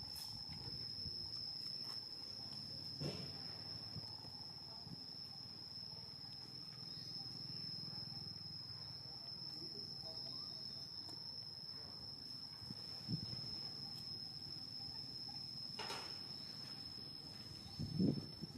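A steady, high-pitched insect drone that holds one unbroken tone, over a low background rumble with a few soft knocks and a louder low sound near the end.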